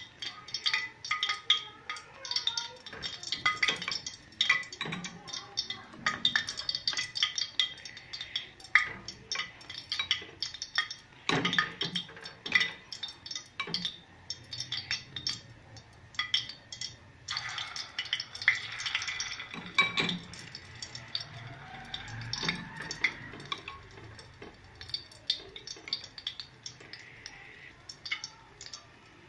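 Metal kitchen utensils clinking and scraping against a bowl and a pan in irregular clinks, as koftas are coated in egg and put into the hot ghee.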